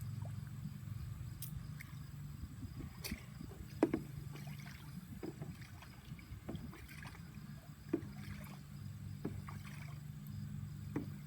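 Waterfowl splashing and dabbling in a backyard pool: irregular small splashes and sharp clicks, a few seconds apart, over a steady low hum.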